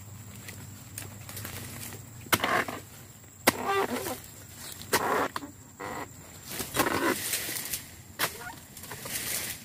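Long-poled harvesting chisel (dodos) chopping into the bases of oil palm fronds: about five sharp strikes spread over the stretch, several followed by a brief rustle.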